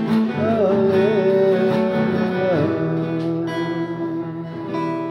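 Acoustic guitar strummed under a man singing a hymn: a long, wavering held note that slides down about two and a half seconds in, after which the strummed chords ring on.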